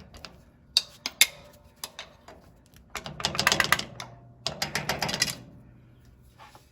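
Hand tools clicking and tapping on the metal of a tractor's PTO lever linkage while a stuck cotter pin is worked loose: a few sharp clicks, then two rapid bursts of metal clicking, each about a second long, in the middle of the stretch.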